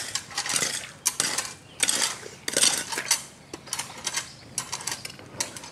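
Irregular clicks and scrapes of metal bottle caps and wet gravel handled by hand as the caps are set in a line in shallow water, thinning out near the end.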